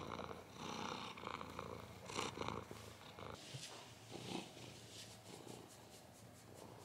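A domestic cat purring softly while being stroked, in faint, uneven pulses.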